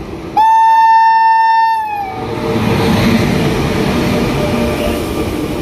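Train horn sounding one long blast of about a second and a half, its pitch sagging as it cuts off, followed by the steady running noise of the train on the track.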